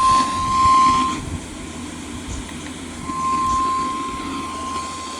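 Weather radio alert tone: a steady single tone near 1 kHz over radio hiss, part of a National Weather Service weekly test of the Specific Area Message Encoding alert system. It stops about a second in and sounds again from about three seconds in.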